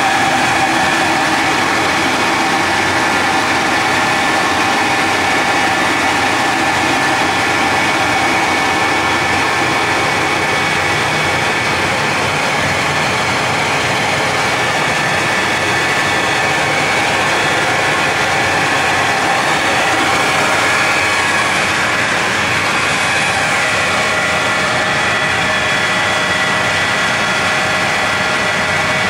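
Machinery running continuously at a steady pitch and level, a dense mechanical noise with several held tones.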